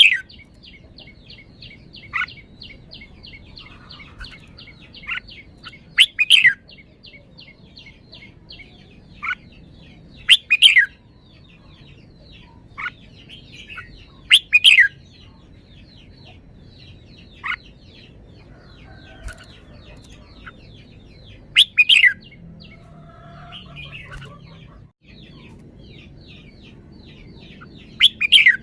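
Red-whiskered bulbul singing loud, short, falling phrases every few seconds, over a fast, steady twittering of other birds.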